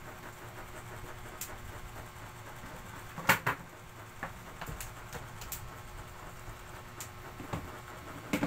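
A steady low background hum with a few scattered sharp clicks or taps, the loudest a little over three seconds in.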